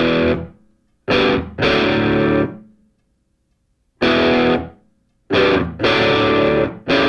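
Music: distorted electric guitar chords, struck in short stabs and held notes with abrupt silences between them.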